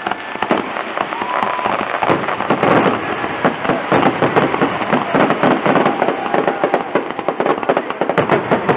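Fireworks display: a dense, rapid crackle of many sharp pops and bangs from aerial bursts and crackling stars.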